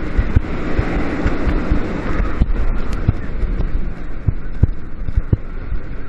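Wind rushing and buffeting over the on-ride camera microphone while a B&M wing coaster train runs along its steel track, its wheels rumbling, with a string of sharp clacks in the second half.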